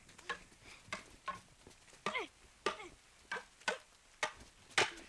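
Wooden practice swords (bokken) clacking together in quick sparring, about nine sharp, irregularly spaced knocks, some ringing briefly.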